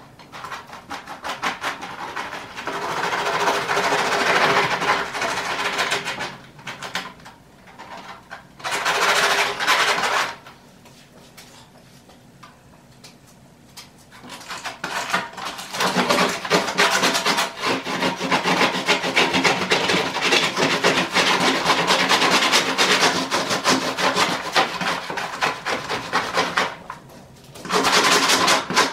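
Rapid back-and-forth scraping of a hand tool over a 1986 Chevrolet Caprice headliner board, stripping off the old crumbling foam backing. It comes in spells of several seconds with short pauses between them, the longest spell running for about ten seconds in the second half.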